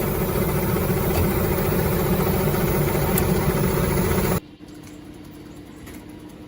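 Heavy machinery engine running loud with a dense, noisy rumble, cutting off suddenly about four seconds in to a quieter, steady engine idle with a low hum.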